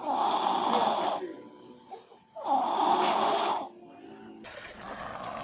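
A sleeping baby snoring: two loud snores, each just over a second long and about two and a half seconds apart, with a fainter sound after them near the end.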